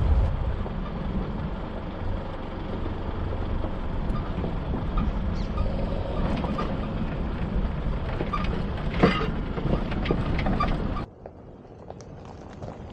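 Isuzu D-Max ute crawling down a rocky dirt track: steady engine and tyre noise with knocks and rattles over the stones, one louder knock about nine seconds in. Near the end the sound drops suddenly to a quieter, more distant crunch of the ute coming over the gravel.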